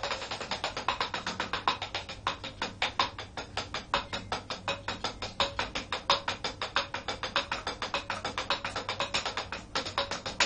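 Drumsticks playing a fast, even sticking routine on rubber practice pads, with rapid evenly spaced strokes and some louder accented strokes among them.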